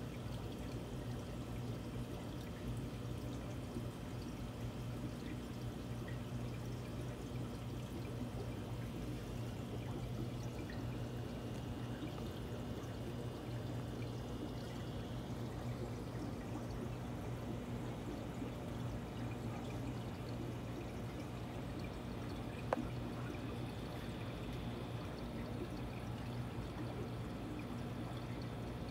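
Aquarium filter water trickling and pouring steadily over a low, steady hum. There is one sharp click about two-thirds of the way through.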